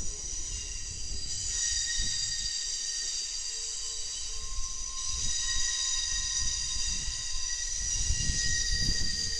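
Streamlined passenger coaches of a train rolling past, their wheels squealing in several steady high-pitched tones over a low rumble of the cars on the rails.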